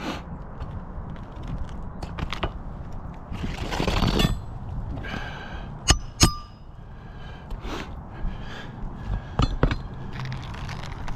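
Brittle old asphalt roof shingles being pried and worked by hand and tool: a long scrape about four seconds in and scattered sharp cracks and clicks, two loud ones in quick succession mid-way, as the aged shingles crack and shed granules.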